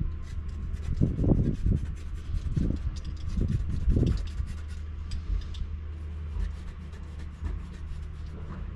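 Hands rubbing and smoothing pond underlay fleece over the pond floor: a scratchy rustle, with heavier rubbing strokes from about one to four seconds in, over a steady low hum.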